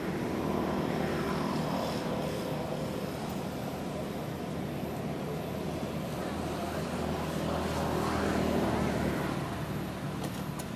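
Steady distant engine drone with a low hum, swelling a little near the end and then easing.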